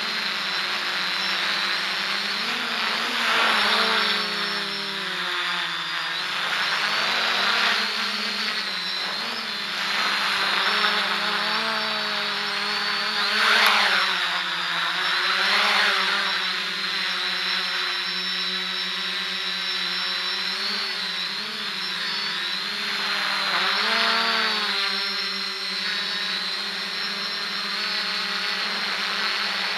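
FPV quadcopter's brushless motors and propellers whining. The pitch glides up and down with the throttle, and the sound surges louder several times.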